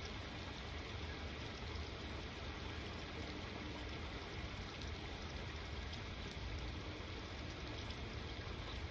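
Steady rain falling, with a constant low rumble underneath.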